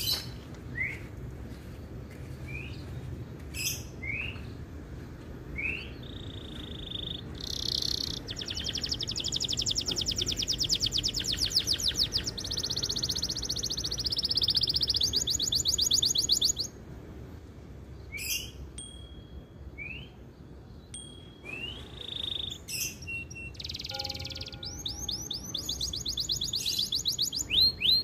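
Male canary singing: a few separate short rising chirps, then a long fast trill lasting about nine seconds that stops suddenly, more scattered chirps, and another fast trill building near the end.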